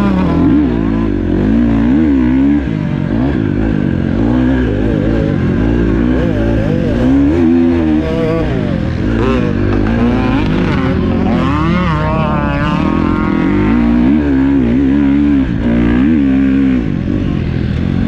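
Motocross bike engine revving hard, its pitch climbing and dropping over and over as the throttle is opened and shut and the gears change through the corners and straights.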